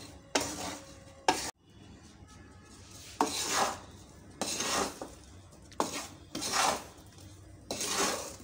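A wooden spatula stirs baby potatoes through a bed of salt in a non-stick pan, making short scraping strokes every second or so.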